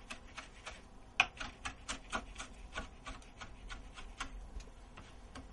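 Knife coarsely chopping rosemary leaves: a quick, fairly even run of light knocks, about four or five a second.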